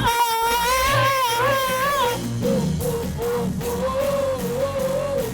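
Live worship band music. A melody line holds one long wavering note for about two seconds, then moves into shorter repeated notes over a steady backing.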